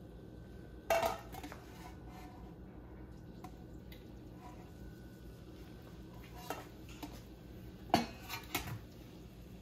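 Stainless steel pots and utensils clanking and clinking against each other on a stovetop: a sharp clank about a second in, then a few more near the end, the loudest about eight seconds in. A low steady hum runs underneath.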